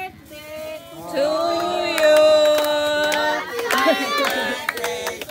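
A group of voices singing together, holding long notes, with hand claps throughout.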